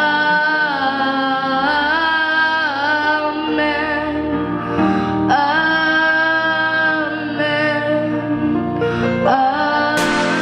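A young girl singing into a microphone over music, holding long notes that bend in pitch. Near the end it cuts to a different song with sharp beats.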